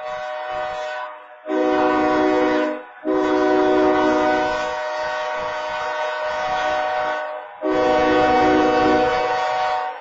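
A locomotive's air horn sounds three long blasts in quick succession, the middle one the longest, each cutting off sharply. Before the first blast a quieter steady horn tone is heard, the crossing's wayside horn sounding continuously.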